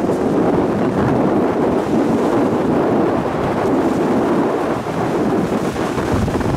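Strong gusty wind buffeting the microphone, a loud, steady rumble, with surf breaking on a pebble shore beneath it.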